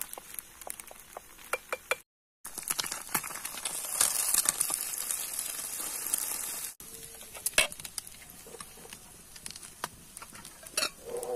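Egg frying in oil in a pan, sizzling with scattered sharp crackles and pops. The sizzle is louder and denser for a few seconds in the middle, then thins out to fainter crackling.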